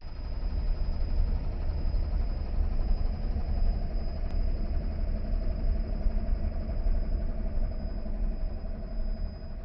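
AEG Lavatherm Exclusiv tumble dryer running with one bedsheet in the drum: a steady low rumble of the motor and turning drum.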